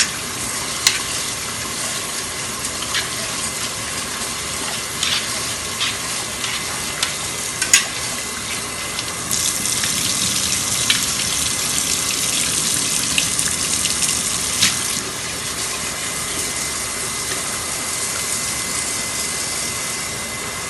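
Kitchen tap running steadily while rice is rinsed by hand until the water runs clear, with a few sharp clinks and knocks. The water runs louder for a stretch in the middle.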